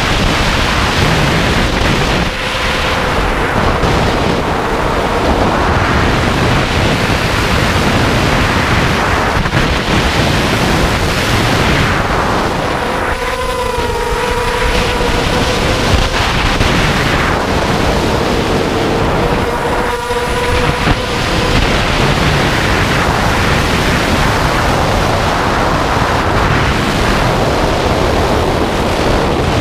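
Blackout Mini H quadcopter on a 4S battery in flight: its motors and propellers whine under heavy wind rush on the onboard camera's microphone. The motor pitch rises and falls with the throttle and shows through most clearly near the middle and again about two-thirds of the way through.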